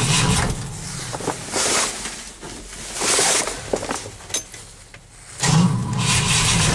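Engine being cranked by its starter motor on a bitterly cold morning without catching: a cold no-start. A cranking burst ends about half a second in, and another begins about five and a half seconds in.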